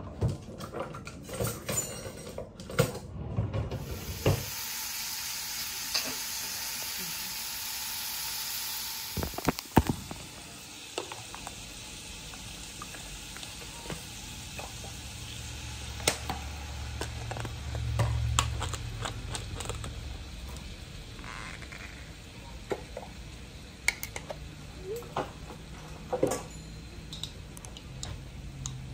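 Seasoned salmon frying in a hot pan: a loud sizzle starts about four seconds in, then settles to a steadier, quieter sizzle, with scattered clinks and knocks of jars and utensils.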